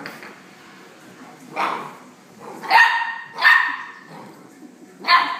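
Rhodesian Ridgeback puppy barking four times, short barks a second or so apart, the first softer than the rest.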